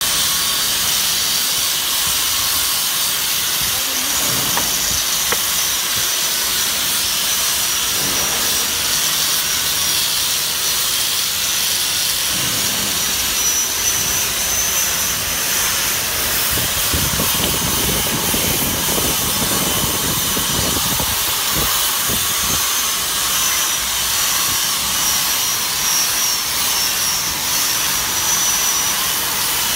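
Handheld wet polisher running with a steady high whine and hiss while a diamond polishing pad is worked over a granite edge to hone it. Rougher scrubbing of the pad on the stone comes and goes, strongest in the middle.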